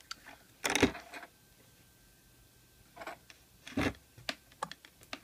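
Handling clicks and knocks from a handheld digital multimeter: its rotary selector switch being turned to the diode-test setting and the meter set down on a table. A sharp cluster comes just under a second in, two more knocks around three and four seconds in, then a few light clicks near the end.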